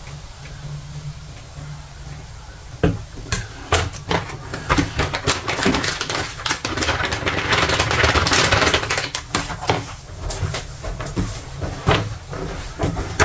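Crinkly plastic food packet being handled and shaken, with sharp crackles starting a few seconds in and a dense rustling that is loudest around the middle, over a low steady hum.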